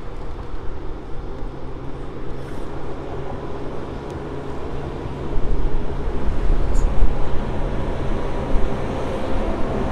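Diesel freight locomotives, three coupled together, running with a steady low engine drone as they pass close by, growing louder about halfway through as the lead units come alongside.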